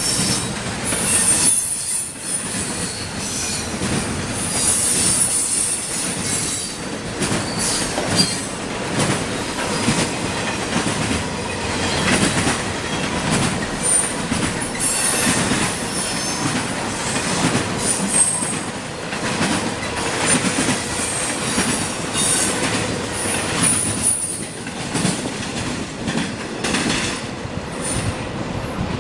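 CSX intermodal freight train rolling past, its wheels squealing in high, on-and-off screeches over a steady rumble, with frequent sharp clicks and clatter from the wheels on the rails.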